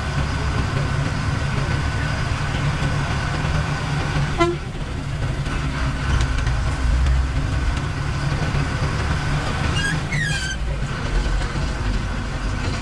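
Diesel bus engine running with a steady low rumble, heard from inside the driver's cab while driving in traffic. Short horn toots cut in about four seconds in and again about ten seconds in, the second with a wavering pitch.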